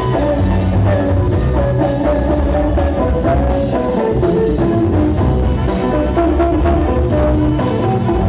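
Loud breakdance battle music over the hall's speakers: a steady drum beat with a bass line and a melodic line running over it.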